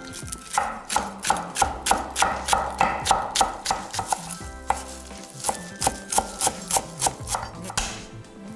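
Chef's knife chopping green onion and fresh parsley and dill on an end-grain wooden cutting board: quick, even knocks of the blade on the wood, about four a second, easing off briefly near the middle.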